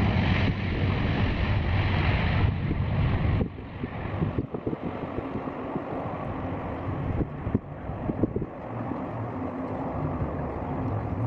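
Aircraft engine noise from a takeoff, sped up to double speed, with strong wind buffeting the microphone. The louder, brighter noise drops off sharply about three and a half seconds in, leaving a lower rumble and wind.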